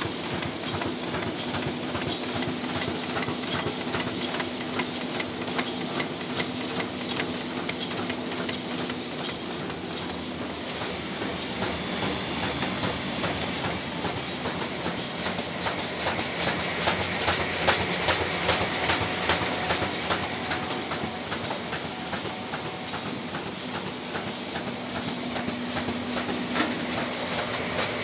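Dakiou PY-950 roll-fed paper die-cutting and creasing machine running at high speed, about 157 cuts a minute: a steady, rhythmic mechanical clatter over a constant high hiss.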